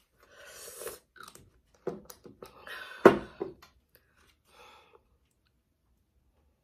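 A plastic food container and fork being handled: a brief rustle, then a few knocks, the loudest about three seconds in.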